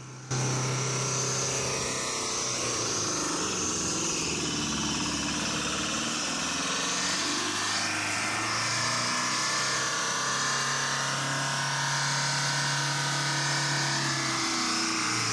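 Light box truck's diesel engine in runaway, racing uncontrolled at a steady, unchanging high speed while it burns its own engine oil and pours out white smoke. The engine cannot be shut off with the key and stops only when stalled through the clutch.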